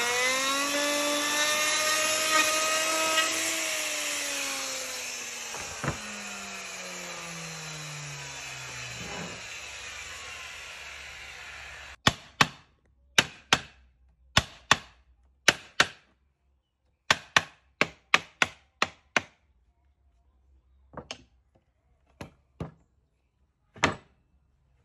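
Handheld electric router running, its whine rising slightly as it comes off the cut, then switched off and winding down over several seconds. Then a series of sharp hammer blows on a wooden cabinet frame being assembled: about twenty knocks in pairs and short runs with pauses, the last few fainter.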